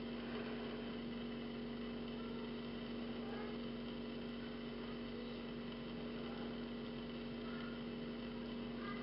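Steady low electrical hum, like an appliance or motor running, over a constant background hiss. A few faint short high chirps sit in the background.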